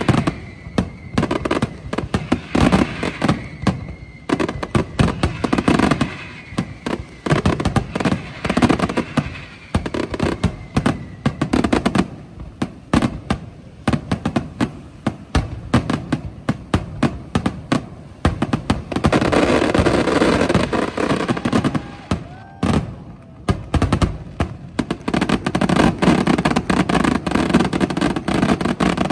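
Fireworks display: a rapid, unbroken barrage of bangs from bursting aerial shells and firecrackers, with a few high whistles gliding down in pitch in the first half and a denser stretch of continuous crackling about two-thirds through.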